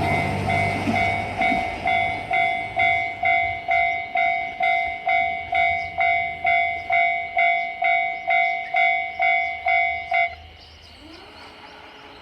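Japanese railway level-crossing warning bell ringing its 'kan-kan' alarm, a little under two strikes a second, then cutting off about ten seconds in as the crossing's warning ends.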